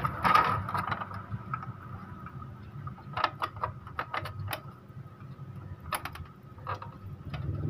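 Scattered small clicks and taps of plastic and metal parts being handled inside an opened Epson L3110 inkjet printer while a new spring is fitted in its paper-feed mechanism. The clicks come in a quick cluster about halfway through and a few more near the end, over a steady low hum.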